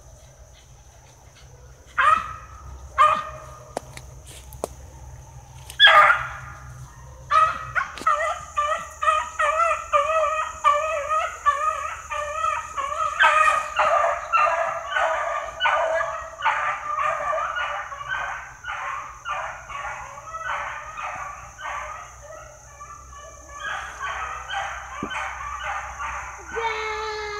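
Hounds barking: a few single barks, then an unbroken run of barks about two a second from about eight seconds in. Near the end comes a longer howl that falls in pitch.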